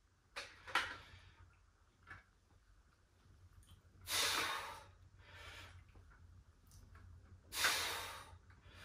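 A man's hard breaths out while pressing dumbbells: three strong exhales about three and a half seconds apart, with fainter breaths between, the breathing of exertion during a set of reps.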